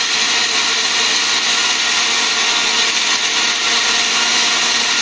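Disnie Cyclone 1300-watt commercial blender running at speed, grinding dried turmeric into a fine powder: a loud, steady whir.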